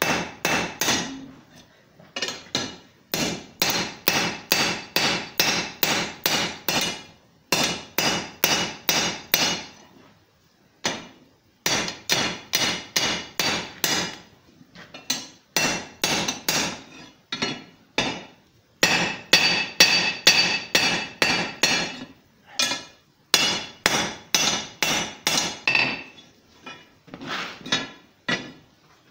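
Blacksmith's hand hammer striking a red-hot steel bar on an anvil, upsetting a right-angle bend into a square corner. The blows come in quick runs of about three a second, each with a metallic ring, separated by short pauses.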